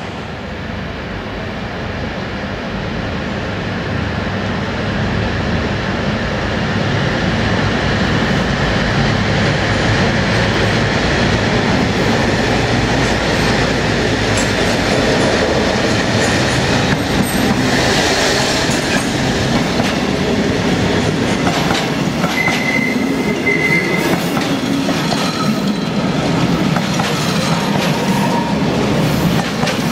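A diesel-hauled freight train passes close by. The locomotive's engine and the rumble grow louder over the first several seconds, then the wagons' wheels run steadily over the rails. A brief high wheel squeal comes about two-thirds of the way through.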